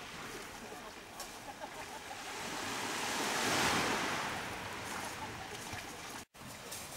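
Small sea waves washing in, one wave swelling up and breaking about three and a half seconds in, then easing off. The sound drops out for an instant near the end.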